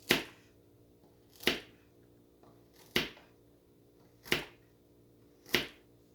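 Victorinox pocket knife blade making cutting strokes through a material: five short, sharp strokes about a second and a half apart.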